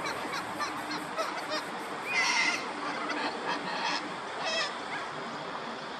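Waterfowl calling: a string of short wavering calls, the loudest about two seconds in and another just past the middle.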